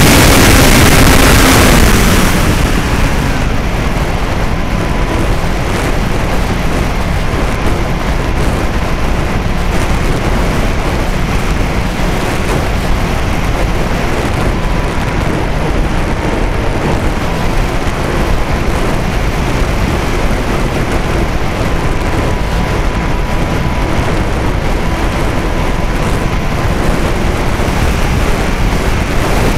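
Strong wind buffeting the microphone, loudest in the first two seconds, with the faint steady whine of a TopModel Stinger model plane's motor in flight underneath.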